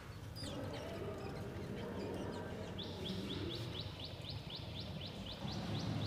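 Bird calls: a few high chirps early on, then from about three seconds in a rapid, evenly repeated series of high chirping notes, about four a second, over a low background rumble.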